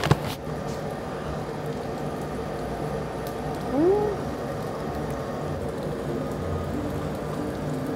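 A woman eating, with one short hummed "mmm" of enjoyment that rises then falls in pitch about four seconds in, over a steady low hum.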